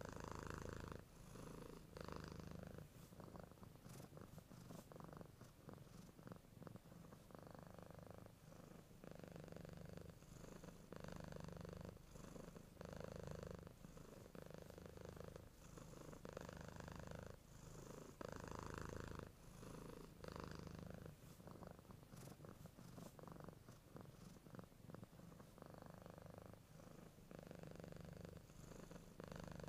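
A sleeping cat purring faintly, the purr swelling and easing in even cycles of about two seconds as it breathes in and out.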